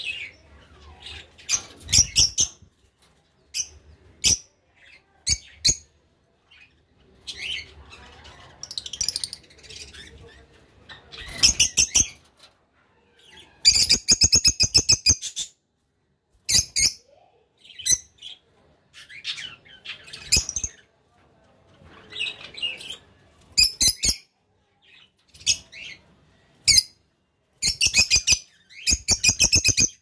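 Caged lovebirds chirping and screeching in short, shrill bouts of rapid calls, the longest and loudest trill about halfway through, with sharp clicks scattered among the calls.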